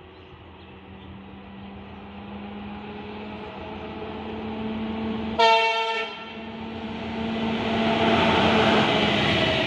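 An Indian Railways diesel locomotive hauling a goods train approaches at speed, its engine drone growing steadily louder. About five and a half seconds in it gives one short blast of its horn. In the last few seconds the noise of the train swells as it comes alongside.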